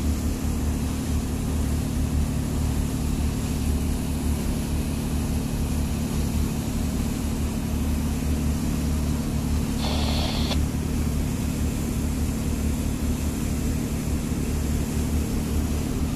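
Boat engine running steadily under way, a constant low drone, with a brief higher-pitched sound about ten seconds in.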